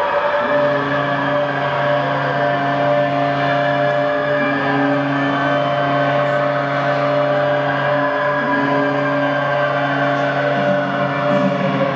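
Ice rink goal siren, fully wound up and holding one steady pitch after the game-winning goal. A lower steady horn tone joins about half a second in, and the siren begins to wind down near the end.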